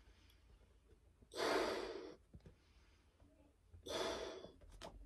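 A person blowing up a latex party balloon by mouth: two loud breaths between puffs, about two and a half seconds apart, with quiet between them.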